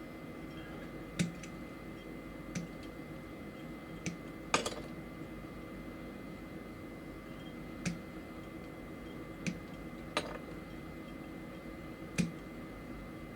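Hobby side cutters snipping small plastic parts off the runners of a mini model kit: sharp clicks every second or two, the loudest about four and a half seconds in. A steady low hum lies underneath.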